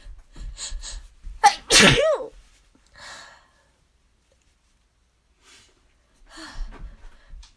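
A loud allergy sneeze about a second and a half in, led up to by quick sharp inhales and ending in a voiced cry whose pitch swoops down and back up. A breath follows, then a quiet gap before more breathing near the end.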